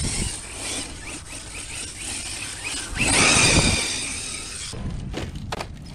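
Arrma Mojave 1/7-scale RC truck's electric motor and drivetrain whining as the truck spins its tyres through dry grass. It surges louder about three seconds in, then cuts off abruptly, followed by a few sharp clicks.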